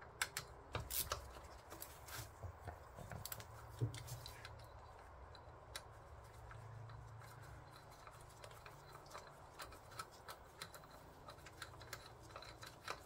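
Light, irregular metallic clicks and taps of a hand tool working loose the bolts of a Volkswagen Haldex coupling pump, with a faint low hum underneath.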